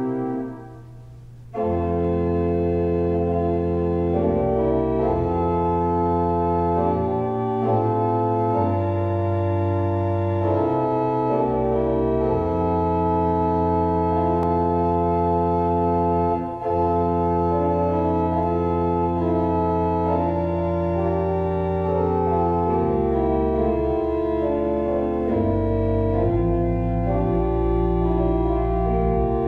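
Pipe organ playing slow, sustained chords over a deep pedal bass, the harmony changing every second or two. There is a short break in the sound about a second in before the chords resume.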